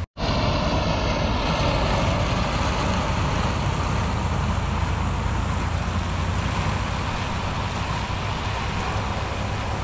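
A motor vehicle running, with a steady, even noise of engine and road.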